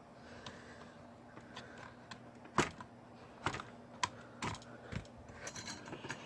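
Scattered sharp plastic clicks and taps of laptop internals being handled and pried apart, with the loudest click a little over two and a half seconds in.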